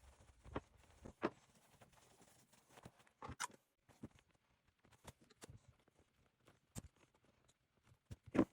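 Scattered soft knocks and clicks of handling, spaced irregularly, with the loudest knock near the end.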